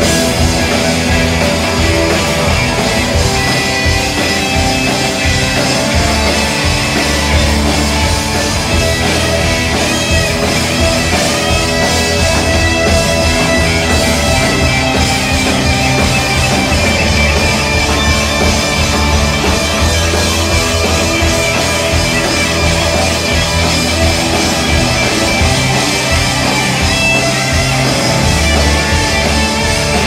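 Live rock band playing loud and steady, with electric guitars over bass and drums.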